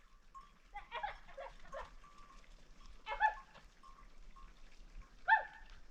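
Short animal calls: a quick cluster about a second in, then two louder single calls at about three and five seconds.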